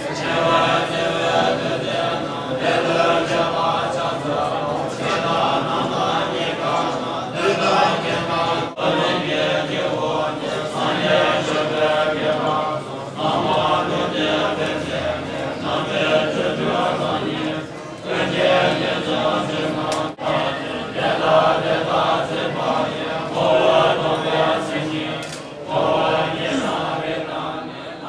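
A large group of Tibetan Buddhist monks chanting texts aloud together, a dense, continuous mass of men's voices, fading near the end.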